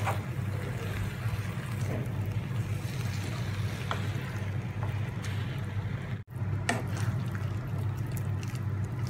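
Wooden spatula stirring and mashing boiled tapioca into thick beef masala in a nonstick pan, with a few light knocks of the spatula against the pan. A steady low hum runs underneath, and the sound breaks off for an instant about six seconds in.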